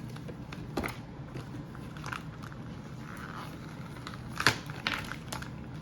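Handling noise from a toy spy pen and its plastic packaging: a few sharp small clicks, the loudest about four and a half seconds in, with faint rustling between them.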